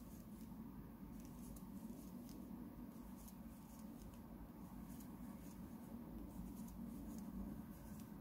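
Faint, irregular scratching and rustling of a Tulip 3/0 (2.20 mm) crochet hook drawing yarn through stitches while single crochet is worked, over a low steady hum.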